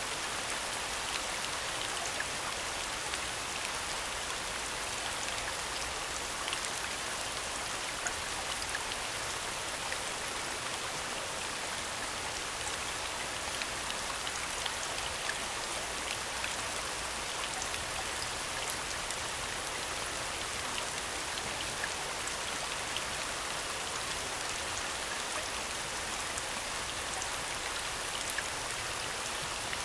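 Rain soundscape: steady falling rain, an even hiss dotted with scattered drop ticks.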